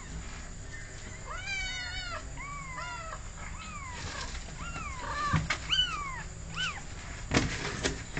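A cat meowing over and over: about nine short, high-pitched meows, each rising and then falling in pitch, the first about a second in being the longest. Near the end comes a sharp knock or handling noise, the loudest sound here.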